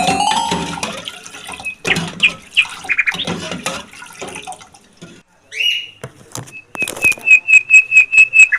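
Small pet birds chirping in short high calls, a few clicks or taps among them, ending in a fast run of about eight loud, evenly spaced chirps.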